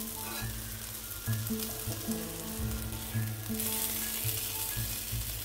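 Tandoori chicken pieces sizzling on a hot perforated metal tawa. Light background music with a melody plays over it.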